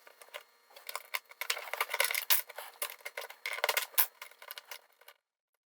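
LEGO pieces clicking and rattling as they are pried apart and handled, a busy run of small hard plastic clicks that stops suddenly about five seconds in.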